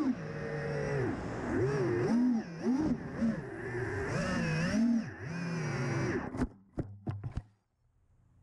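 FPV quadcopter's brushless motors whining, the pitch swooping up and down with the throttle. About six and a half seconds in come four sharp knocks as the drone hits the ground and tumbles into the grass, and the motors stop.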